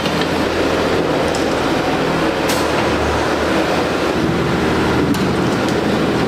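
Atlas excavator's diesel engine running steadily at working load, with two sharp knocks about halfway and near the end.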